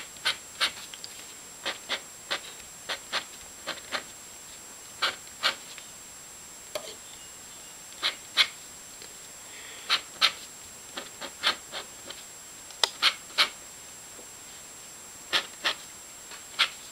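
A dip pen nib scratching across paper in short quick strokes, mostly in pairs, as double lines are inked, with irregular pauses between the strokes.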